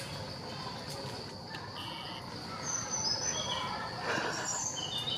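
Forest ambience: a steady, high-pitched insect drone, with a few short, scattered bird chirps.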